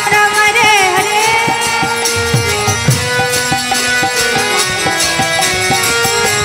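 Devotional kirtan music: a voice singing a sustained melody over a drum and jingling hand percussion in a steady rhythm.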